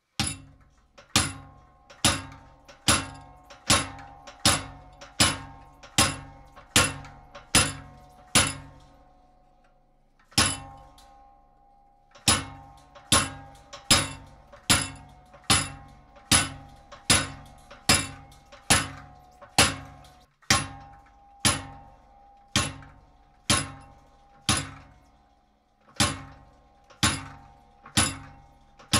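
Treadle hammer driving a short cold chisel through cold sheet steel: a steady run of sharp, ringing metal blows, a little under two a second. The blows stop for about two seconds about a third of the way in, and break off briefly again about two-thirds of the way through.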